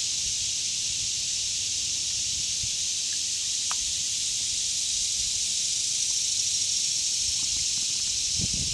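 Dense insect chorus from summer woodland: a steady, high, even hiss that swells slightly near the end.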